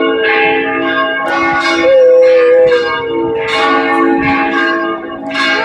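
Church bells ringing in repeated strikes, with a dog howling along in long, wavering notes; one howl swells up about two seconds in.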